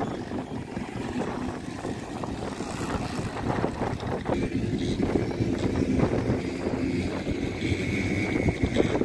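Small kids' quad bikes running around a sand track, a steady engine hum with wind on the microphone.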